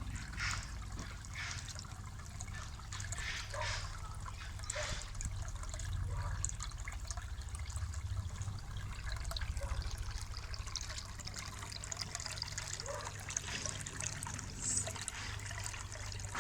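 Water trickling steadily in a koi pond, with irregular small splashes and a steady low hum underneath.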